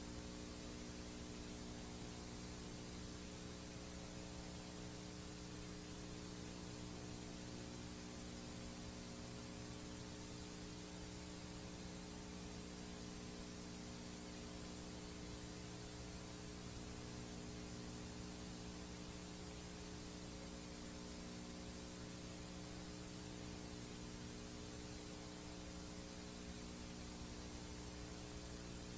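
VHS tape playing a blank stretch: a steady tape hiss with a low hum and several steady overtones above it, faint and unchanging.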